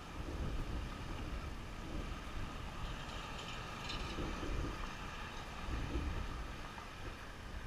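Wind buffeting the microphone in uneven gusts over a steady background rumble.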